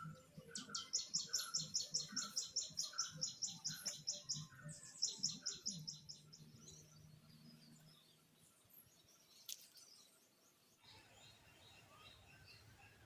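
A bird singing a fast run of repeated high chirps, about four or five a second, in two bursts over the first six seconds, then quiet outdoor background.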